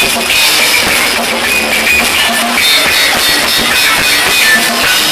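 A live band playing loud amplified music with a drum kit, heard from within the concert crowd.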